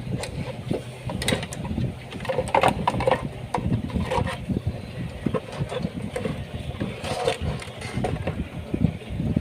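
Irregular clicks and knocks of fuel pump assembly parts being handled and fitted together, over a steady low rumble.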